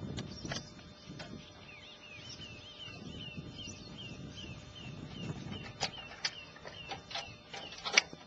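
Metal clicks and knocks as a camper's hinged rear door and a slide-out steel tray are handled, with several sharp knocks in the last few seconds and the loudest near the end. Behind them a bird calls repeatedly, a short chirp about three times a second for a few seconds in the middle. The whole track is sped up to double speed.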